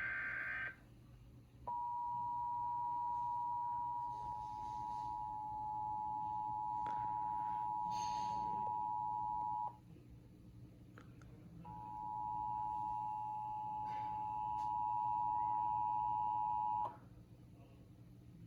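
Emergency Alert System broadcast alert: the tail of a digital header burst about half a second in, then the EAS two-tone attention signal (853 Hz and 960 Hz sounding together). The attention signal holds for about eight seconds, breaks off for two seconds, and sounds again for about five seconds.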